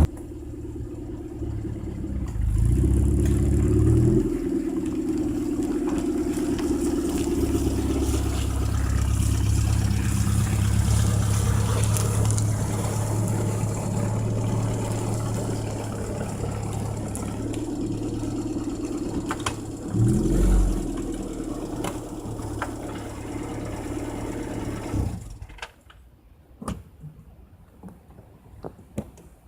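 Morris Mini Traveller's A-series four-cylinder engine running as the car is driven, rising in pitch twice, about three seconds in and again around twenty seconds. It cuts off a few seconds before the end, leaving a few faint clicks.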